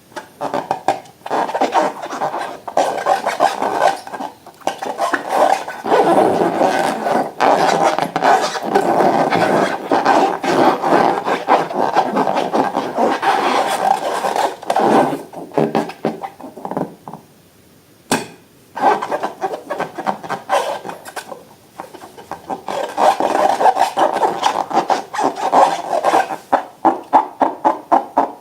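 Slime being mixed: fast, continuous scraping and rubbing. It breaks off briefly about two thirds of the way through, then gives way to quick, regular clicks near the end.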